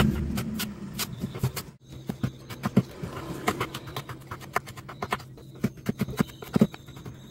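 Chef's knife chopping green onion and then red and green chilies on a wooden cutting board: quick, irregular knocks of the blade on the wood, with a short break about two seconds in.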